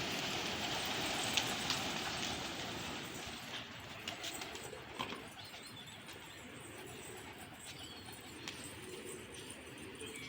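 Pigeons cooing softly over a steady background hiss, with a few short clicks in the first half.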